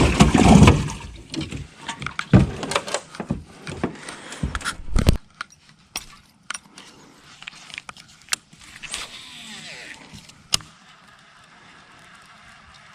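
Fishing tackle being handled in a boat: loud rattling, clicking and knocking for about five seconds, then only a few scattered sharp clicks and knocks.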